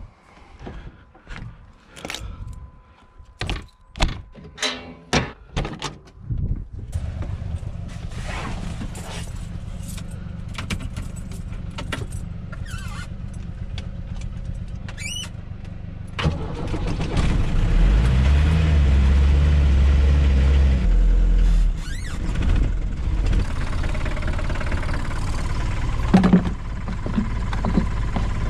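Clicks and clunks of van door latches and handles with keys jingling, then a van engine starts and runs steadily at idle. It revs up for a few seconds a little past halfway, then settles back to idle, with a thunk near the end.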